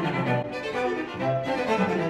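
A classical piece for bowed strings, violin and cello, played back through a pair of PreSonus Eris E8 XT studio monitors and picked up by a microphone in the room.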